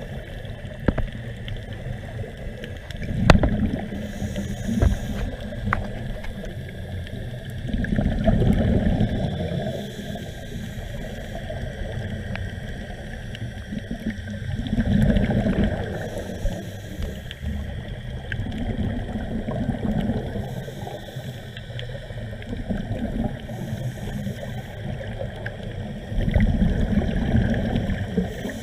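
Underwater sound of a scuba diver's exhaled bubbles, coming as low rumbling, gurgling swells about every five to six seconds. Scattered faint clicks and crackles sound between the swells.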